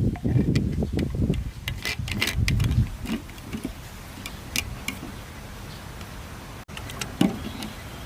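Low rumbling for the first few seconds with a scatter of light clicks and taps, then a few more clicks over a steady faint hiss.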